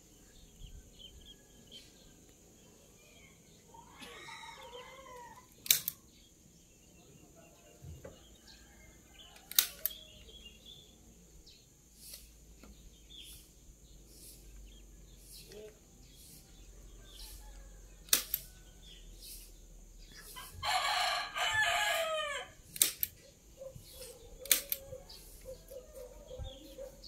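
A rooster crowing twice, faintly about four seconds in and more strongly for about two seconds near the end. Several sharp knocks stand out as the loudest sounds.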